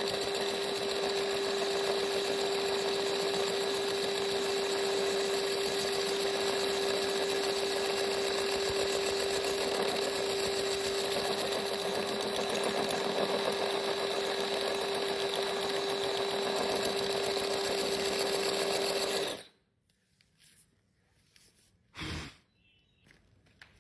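Small electric power tool with a tile-removal blade, running at constant speed with a steady high hum, then switched off suddenly about nineteen seconds in. A short knock follows a couple of seconds later.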